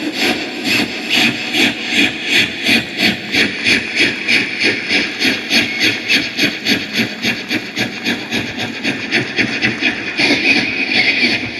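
A man's vocal imitation of a moving train: rhythmic breathy chugging, about three beats a second, like wheels clacking over rail joints. Near the end a steadier hiss comes in.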